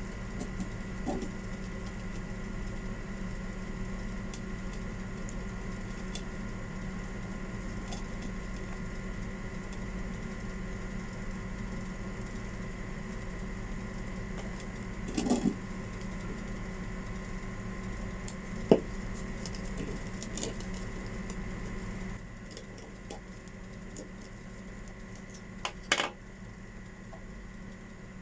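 A steady hum with a few sharp clicks and knocks of hard parts being handled, the loudest about two thirds of the way through; the hum drops slightly a few seconds before the end.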